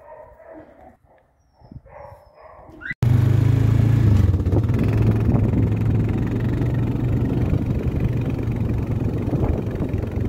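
A quad bike's engine running steadily with a low hum while it is ridden, starting suddenly about three seconds in; before that, a few faint dog whines.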